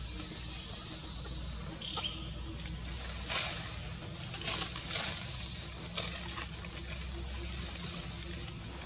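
Outdoor forest ambience: a steady faint high-pitched tone over a low hum, with a few brief scratchy noises about halfway through.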